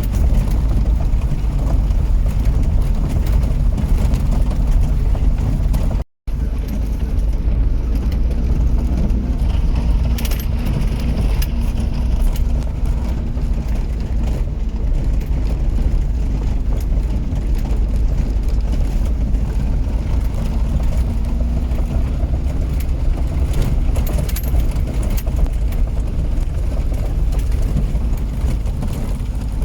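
Motor vehicle on the move: a steady low engine and road rumble with a faint engine hum. The sound cuts out completely for a moment about six seconds in.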